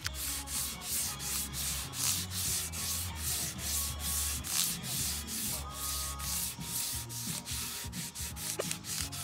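A 16-inch radius sanding block rasping back and forth along a wooden guitar fingerboard, in quick, even strokes of about three a second, shaping the fingerboard's radius.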